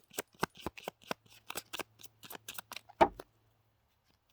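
A deck of tarot cards being shuffled by hand: a quick, irregular run of card flicks and riffles, with a louder knock about three seconds in before it stops.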